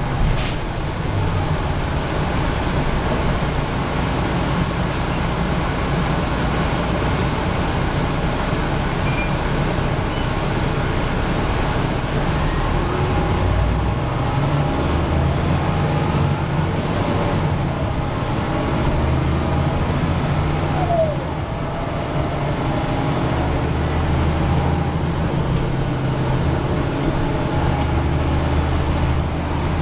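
Mercedes-Benz O405G articulated bus running, heard from inside the passenger cabin: a steady low drone from its OM 447 hLA diesel engine that shifts in pitch several times, with a fainter whine from the ZF Ecomat automatic gearbox.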